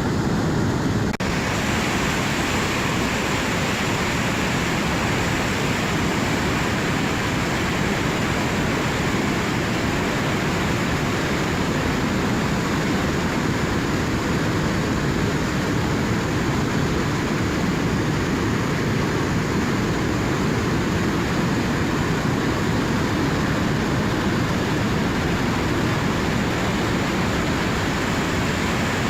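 River in high flow, water rushing in a steady, dense hiss. About a second in, the sound abruptly turns brighter, with more hiss.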